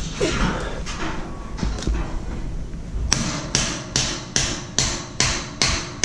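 Hammer blows on steel scaffolding: scattered knocks and clanks, then about three seconds in a run of about seven sharp, evenly spaced strikes, a little over two a second.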